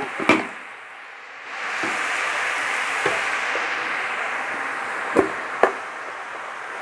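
Spinach sizzling steadily in a steel kadai over a gas flame, with several sharp knocks of a metal spatula against the pan, two of them close together near the end.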